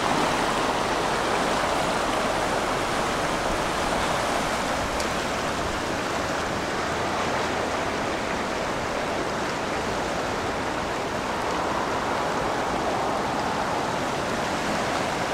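Steady rushing of the Skeena River running high and fast in flood: a continuous, even noise of moving water.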